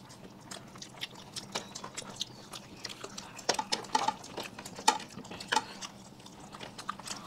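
People eating: irregular small clicks, smacks and light clinks of food and hands or utensils against plates, with chewing.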